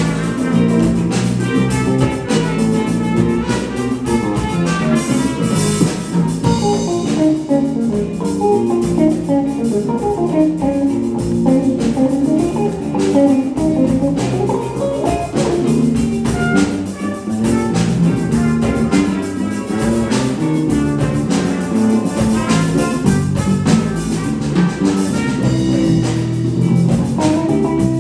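Jazz ensemble playing a funk groove live, with a plucked electric string solo line over drum kit and congas.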